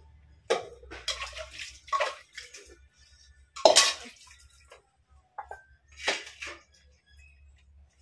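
Steel pots and plates being hand-washed: a handful of short clanks and clatters as metal utensils are handled and set down, with water splashing as they are rinsed. The loudest clatter comes about three and a half seconds in.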